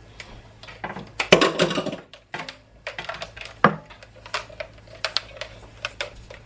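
Irregular clicks and knocks of kitchen things being handled on a countertop, with a louder clatter about a second and a half in and a single sharp knock a little after the midpoint.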